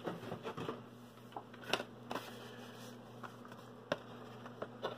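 Faint, scattered clicks and crinkles of a die-cast toy car's cardboard-and-plastic blister pack being handled and swapped for the next one, over a low steady hum.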